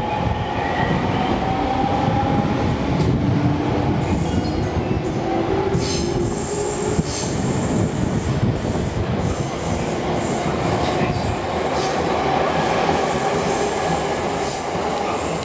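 JR East 209 series 1000-subseries electric train departing, with a motor whine rising slowly in pitch as it gathers speed, over a steady rumble and clatter of wheels on rail as the cars roll past.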